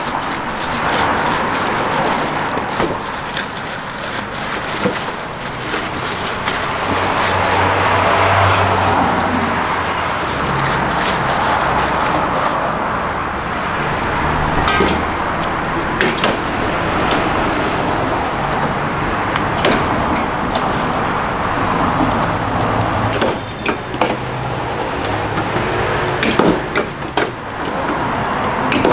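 Steady hum of street traffic, with scattered sharp clicks and knocks from marinated chickens and bamboo skewers being handled in a steel trough.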